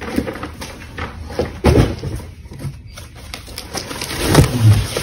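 Cardboard product boxes knocking, rubbing and scraping against one another as they are shifted around inside a cardboard pallet box, with heavier thumps about two seconds in and again near the end.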